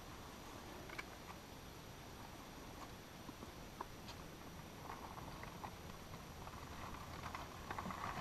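Faint footsteps and rustling on the forest floor with a few light knocks from a carried bait pail, getting busier in the last few seconds.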